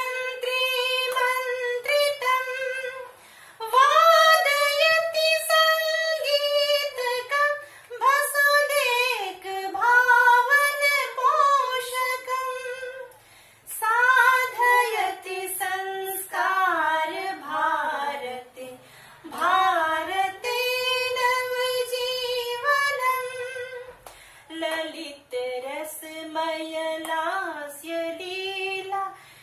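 One high voice singing a melodic song unaccompanied, in phrases of a few seconds each with brief pauses for breath between them.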